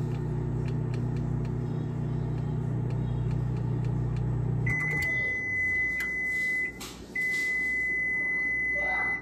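Microwave oven running with a steady hum that stops about halfway through, followed at once by two long beeps signalling that the heating cycle is done.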